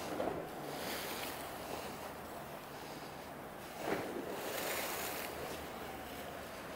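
Sea waves washing against the shore, with wind on the microphone; a sharper hit stands out about four seconds in.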